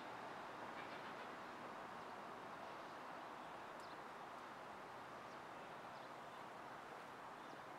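Steady, faint city-street ambience: a constant haze of distant traffic with an analog-style hiss, and a few faint, short bird chirps now and then.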